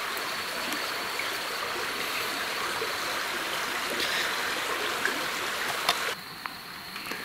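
A small stream running steadily, its rushing noise dropping to a quieter level about six seconds in, with a few faint clicks.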